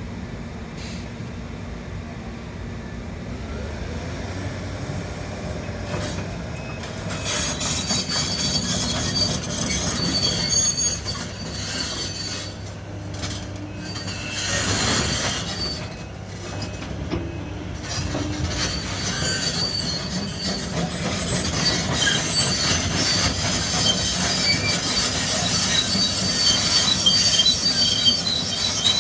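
Link-Belt 490 excavator working: a diesel engine rumbling under high-pitched metallic squealing and scraping. The squealing starts several seconds in and grows louder toward the end.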